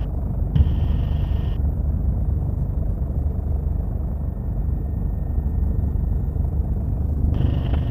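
Helicopter rotor and engine noise heard from inside the cabin: a steady, loud low drone. A short burst of hiss comes in about half a second in.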